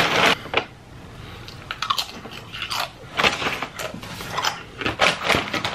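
Close-up eating of crunchy corn chips: irregular crisp crunches about every half second as they are bitten and chewed.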